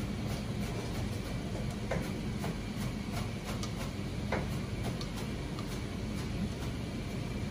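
Steady low hum of a ramen shop kitchen, with a few light clicks of chopsticks against a stainless steel bowl as green onion toppings are lifted onto the ramen.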